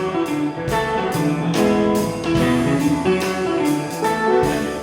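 A rock band playing between sung lines, with guitar to the fore over a steady beat.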